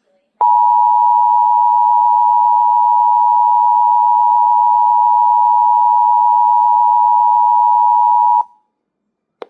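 Emergency Alert System attention tone sent out by a TFT EAS encoder/decoder relaying a severe thunderstorm warning: one loud, steady, unbroken tone lasting about eight seconds that cuts off sharply, followed by a short click near the end.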